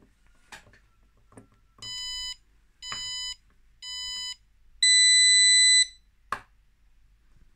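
Capacitive-discharge spot welder's buzzer giving three short beeps and then one longer, louder beep, a countdown before the weld fires. About half a second after the long beep there is a single sharp snap as the capacitors discharge through the electrodes in a 2 ms pulse.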